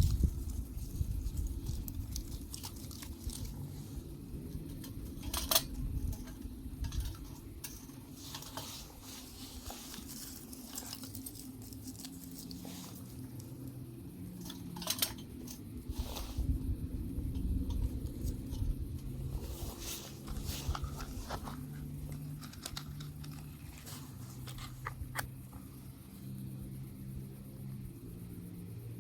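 Beaver chewing and gnawing: irregular crunching bites and clicks.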